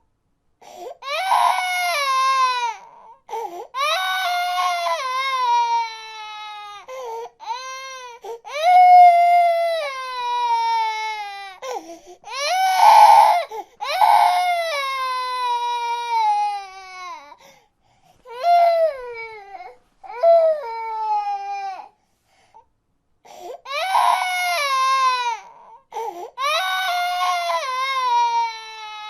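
A baby crying: a run of long wailing cries, each sliding down in pitch, with short breaks for breath between them and a longer pause about three quarters of the way through.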